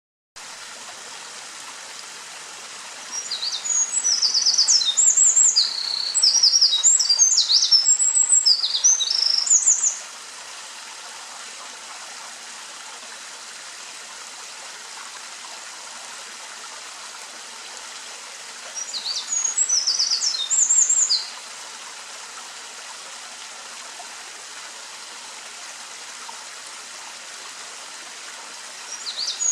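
Eurasian wren singing: loud, rapid, high-pitched trilling songs, one long burst of about seven seconds, a shorter one of about three seconds in the middle, and another starting near the end, over a steady background hiss.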